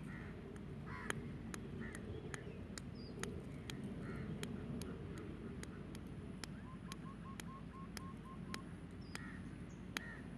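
Birds calling: scattered short harsh calls, and in the middle a run of about eight short, quick notes at roughly four a second. Sharp ticks come throughout, over a steady low rumble.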